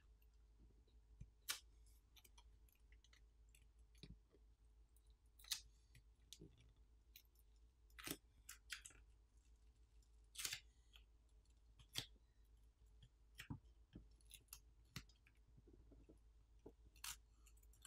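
Near silence broken by faint, scattered clicks and light ticks, about fifteen in all, some in quick pairs, as small repair tools handle the parts of a disassembled smartphone.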